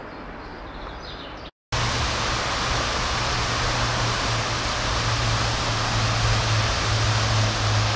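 Quiet outdoor ambience with a few faint bird chirps, then, after a cut, a louder steady rushing noise with a low hum underneath.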